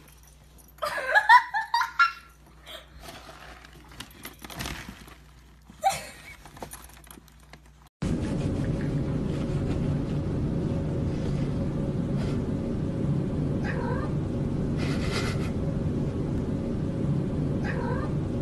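Cat yowling and meowing: one loud, wavering yowl about a second in. Then, over a steady low hum, two short rising meows and two brief rustles.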